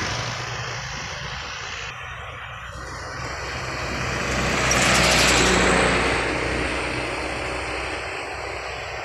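A motor vehicle driving past on the road: engine and tyre noise swells to a peak about five seconds in and then fades, over a steady low traffic hum.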